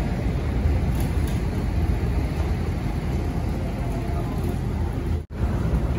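Steady low engine rumble with general harbour noise around a docked ferry. It drops out for an instant about five seconds in.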